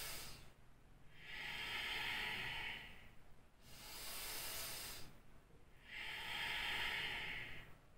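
A man taking slow, deep yogic breaths, alternating breathing in and breathing out. Each breath is a long hiss lasting about a second and a half, with short pauses between, for about two full breaths.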